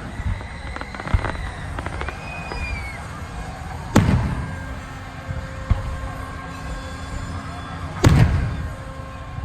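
Fireworks shells bursting: two loud booms about four seconds apart, each with a rumbling tail, and smaller cracks and a short whistle between them.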